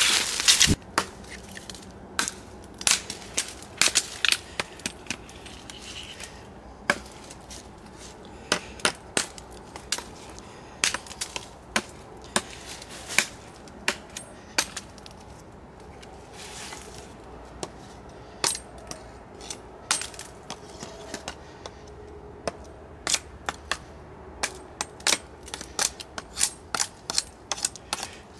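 Kershaw Camp 10 machete chopping a thin branch: many sharp blade strikes at an uneven pace, some in quick runs of several blows. A brief crunch of dry leaf litter at the very start.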